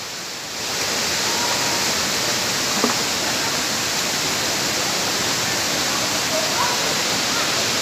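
Steady rushing of a waterfall, falling water heard as an even, unbroken wash of noise.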